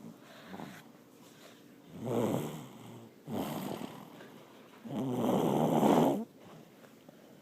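Loud snoring from someone asleep: three snores, the last the longest and loudest at over a second.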